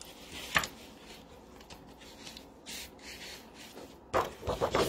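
Craft supplies being handled on a desk: soft rubbing and rustling, a sharp tap about half a second in, and a cluster of louder rustles and taps near the end.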